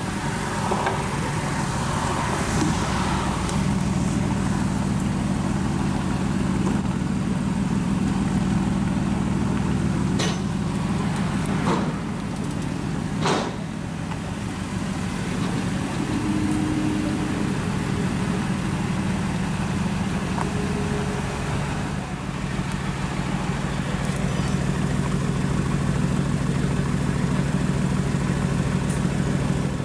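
2019 Aston Martin Vantage's twin-turbo V8 idling steadily, with no revs, and a few short clicks near the middle.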